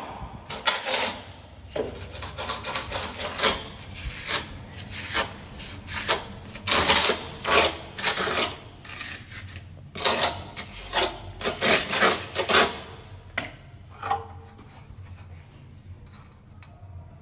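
Irregular scraping and rubbing strokes, some short and some drawn out, coming in bunches and dying away near the end.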